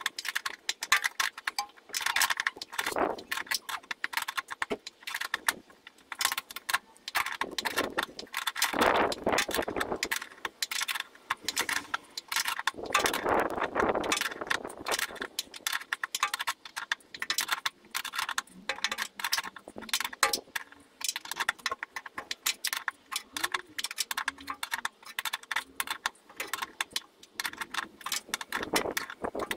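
Rapid, uneven scratching and scraping on metal as dirt and grime are cleaned by hand off the earth-strap mounting point on a van's steel chassis.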